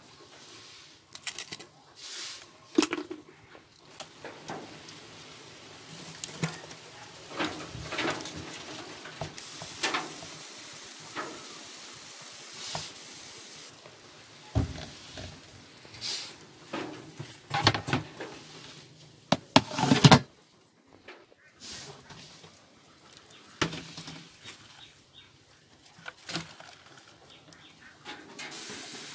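Irregular rustling, clicks and knocks of hands putting leafy greens into a plastic bucket of crickets among corrugated cardboard shelters, with a cluster of louder knocks about two thirds of the way through.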